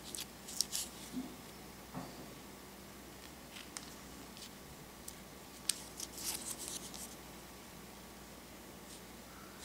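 Fingers handling and turning over a cardboard 2x2 coin holder: faint crinkles and sharp little clicks of the cardboard and its plastic window, in short clusters, the loudest about six seconds in.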